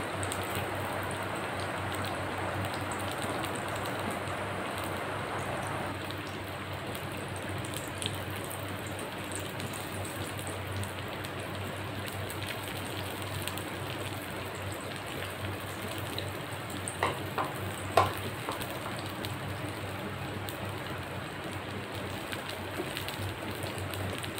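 Besan-battered potato slices (aloo pakori) deep-frying in hot oil: a steady sizzle, a little louder in the first six seconds. A few short clicks about three-quarters of the way through, the loudest near 18 seconds in.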